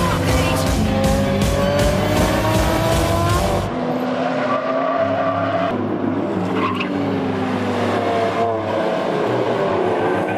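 Sports cars driven hard around a circuit: engines revving up and down through the gears with tyre squeal. The sound changes abruptly about four seconds in and again near the end, where clips are cut together.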